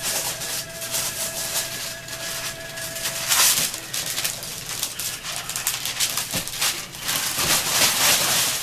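Christmas wrapping paper being ripped and crumpled off a large boxed present: a run of irregular crackling tears, the loudest about three and a half seconds in. A faint steady tone sounds under the first three seconds.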